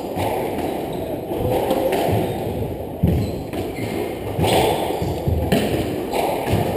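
Squash rally: the ball struck by the rackets and smacking off the court walls, a series of sharp knocks roughly a second apart, the loudest about three seconds in, over a steady background of hall noise.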